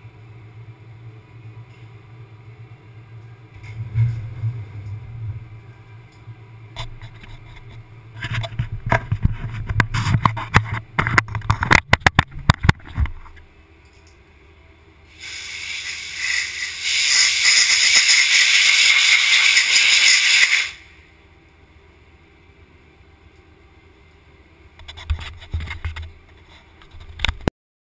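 CNC milling machine work area: a stretch of dense rattling and clattering, then a loud steady hiss of compressed air for about five seconds, blowing chips off the freshly machined metal part, and a brief clatter near the end.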